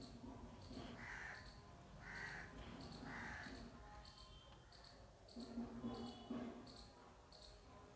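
Faint bird calls in a quiet room: three short harsh calls about a second apart near the start, over a faint high chirp repeating evenly about every two-thirds of a second.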